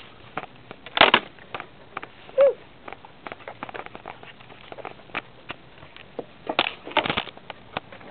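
Handling noise of a handheld camera rubbing and knocking against clothing and willow bark and branches during a climb: irregular scraping, crackling and clicking, with louder knocks about a second in and again around seven seconds in. A single short low-pitched note sounds about two and a half seconds in.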